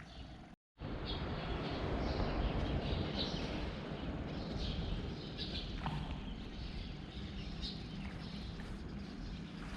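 Steady outdoor wind and sea noise with short, high bird chirps repeating every second or so; the sound cuts out briefly just under a second in.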